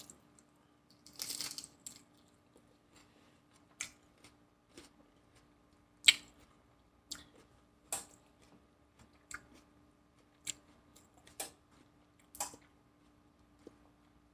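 Close-miked chewing of a lettuce-wrap taco: irregular crisp crunches and mouth clicks, roughly one a second, over a faint steady hum.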